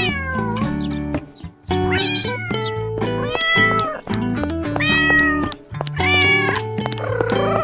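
Music with a cat meowing over it: a series of about five meows, most falling in pitch, above steady low musical notes.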